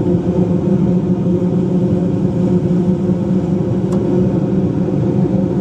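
Gas-fired furnace or boiler running steadily, a loud, even hum of the burner and fan, as its gas valve pressure is turned down because it had been set too high. A faint single click about four seconds in.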